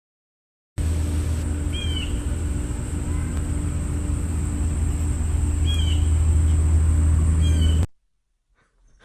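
A cat mewing three short high times over a loud, steady low rumble. The rumble starts and stops abruptly.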